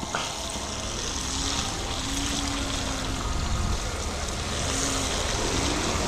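Riding noise from a KingSong S22 electric unicycle moving over rough ground: a steady rush of wind on the microphone and tyre noise, with a faint low hum that comes and goes.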